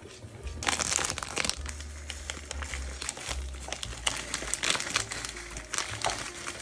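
Dense crinkling and crackling of something being handled in the kitchen, starting about half a second in and stopping shortly before the end, over background music.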